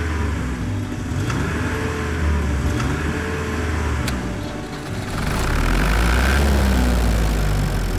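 Car engine sound effect running with a low rumble, growing louder about five seconds in.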